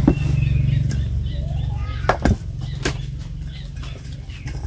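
A metal serving tray and tongs knocking against a wooden chopping board as the tray is moved onto it: a few sharp knocks, two close together about two seconds in and another just after, over a steady low hum.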